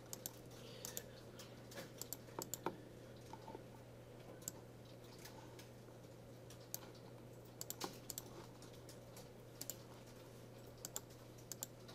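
Faint, scattered clicks of a computer keyboard and mouse, a few at a time in small clusters, over a low steady electrical hum.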